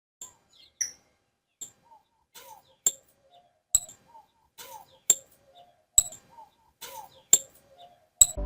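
Small birds chirping: about a dozen short, sharp chirps spaced irregularly, roughly one every second or so, with faint softer calls underneath.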